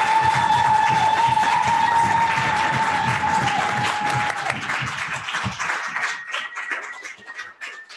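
Audience applauding, dense at first and thinning to scattered claps over the last few seconds, with a steady high tone held through the first half.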